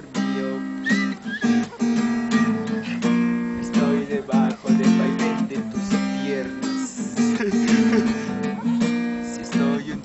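Acoustic guitar strummed, chords played in a steady rhythm.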